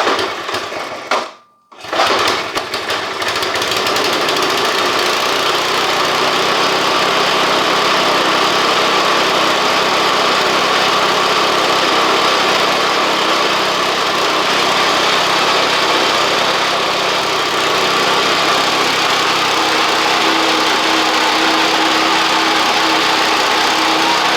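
Small gasoline engine on outdoor power equipment catching after a couple of start attempts, then running steadily at speed.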